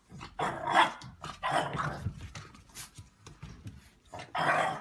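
A dog vocalizing in three main calls, about a second in, about two seconds in and near the end, with fainter sounds between.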